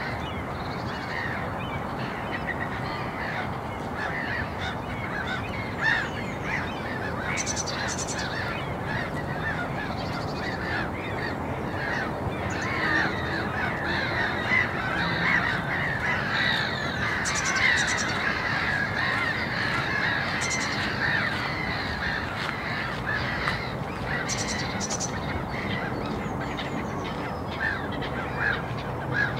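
Park ambience: many birds calling over one another against a steady background rush, with the calling busiest around the middle.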